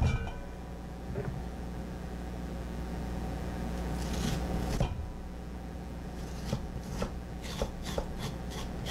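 Hollowed pumpkin halves being handled on a wooden cutting board: a knock at the start, a rasping scrape about four seconds in, then a run of light knocks and taps near the end.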